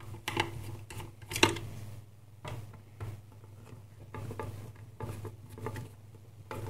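Small screws being undone and taken out of a bench power supply's metal case: scattered light clicks and metal taps, the loudest about a second and a half in.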